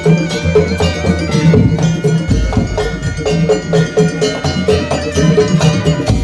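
Madurese ul daul (tong-tong) ensemble playing: a fast, dense rhythm of struck percussion over a heavy low drum beat, with steady melodic tones held above it.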